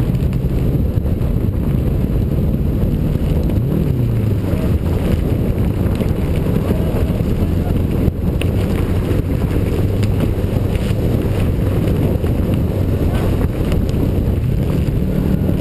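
Turbocharged Subaru flat-four rally engine running hard on a dirt stage, its pitch rising and dropping with throttle and gear changes, with wind buffeting the body-mounted microphone and occasional sharp clicks.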